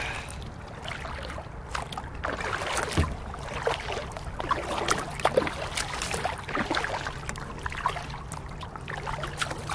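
Kayak paddling: paddle blades dipping and splashing, with water trickling and dripping off them and scattered light knocks and taps at irregular moments.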